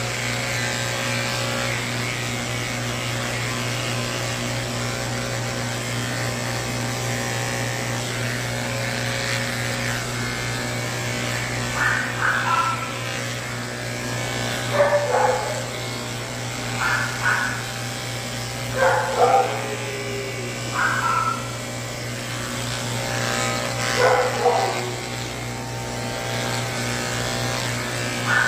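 Electric pet clippers humming steadily while shaving off a matted coat. In the second half, short animal calls break in seven or so times, some falling in pitch.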